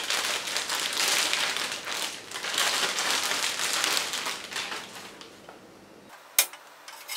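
Table saw miter gauge being handled and slid into the table's slot: a continuous scraping rustle with small rattles that fades out after about five seconds, then a single sharp click.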